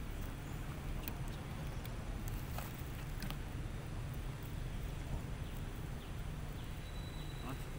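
Outdoor background: a steady low rumble with a few faint clicks scattered through it, and a thin high tone held briefly near the end.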